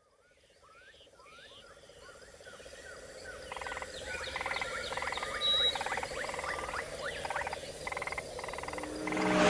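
Frog chorus in a rainforest: repeated short chirps and pulsed croaks over a steady pulsing drone, fading in from silence about half a second in and growing busier. Near the end a swelling whoosh begins.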